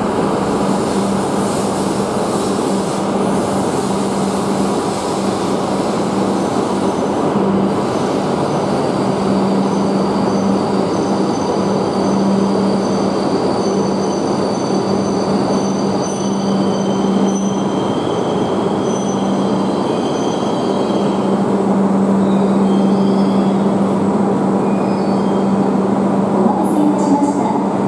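E5 series Shinkansen train rolling slowly alongside the platform and braking to a stop: a steady rumble with a low hum, and faint high-pitched squealing tones that come and go. A few light clicks near the end.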